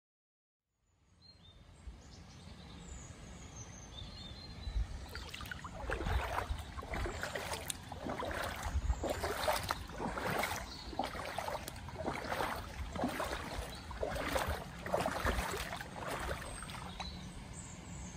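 Footsteps wading through floodwater on a road, each step sloshing and splashing about once a second, over a low rumble of wind on the microphone. A few bird chirps come in near the start as the sound fades up.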